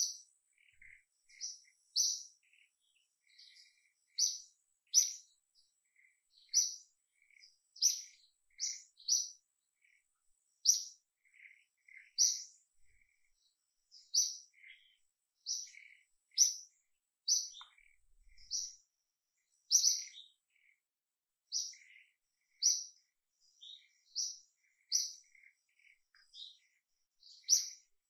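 A small bird chirping again and again: short, high chirps about once a second, with softer, lower notes between them.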